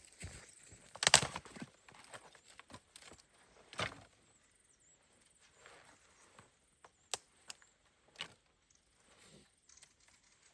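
A few sharp knocks at uneven intervals, the loudest about a second in and another near four seconds, with quieter rustling and handling sounds between.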